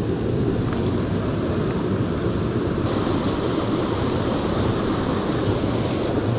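Steady rushing of water in a small, fast-flowing creek.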